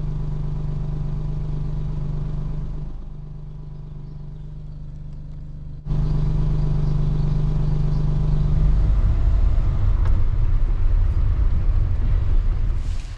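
Suzuki van's engine idling steadily. It is heard from outside at first and from inside the cab after a sudden cut about six seconds in. From about nine seconds the van is moving off, and the steady hum gives way to a rougher, heavier rumble.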